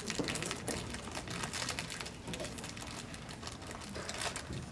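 Audience rustling and shifting in their seats: scattered small clicks and crinkles over a low murmur of faint voices.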